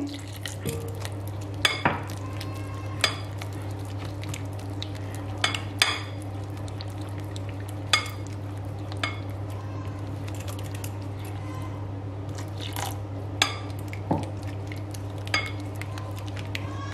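Metal spoon stirring thick gram-flour batter in a glass bowl, clinking against the glass about a dozen times at irregular intervals. A steady low hum runs underneath.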